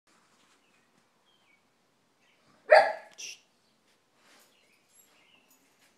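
A dog barks once, sharply, a little under three seconds in, followed at once by a softer, shorter second bark.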